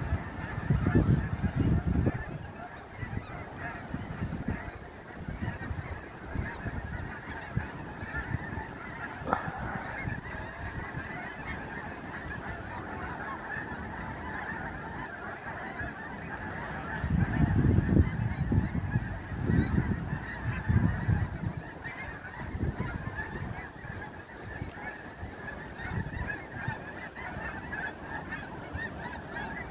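A large flock of geese honking together in a dense, continuous chorus. Low rumbling gusts come up twice, in the first two seconds and again around two-thirds of the way through.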